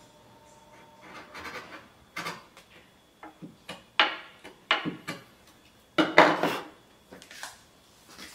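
Wooden parts knocking and scraping against each other as mortise-and-tenon joint pieces are handled and fitted, with several irregular clacks; the loudest come about four seconds in and around six seconds.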